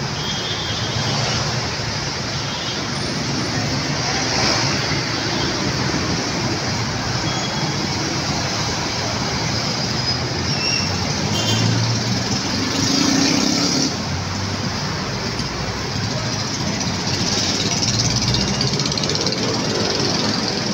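Steady road traffic noise of cars and trucks on a busy city street, swelling a little as heavier vehicles pass.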